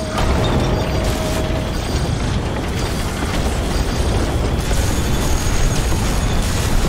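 A heavy train derailing at speed: a loud, continuous rumble and grinding of steel wheels against the rail. A high metal screech stops about two seconds in.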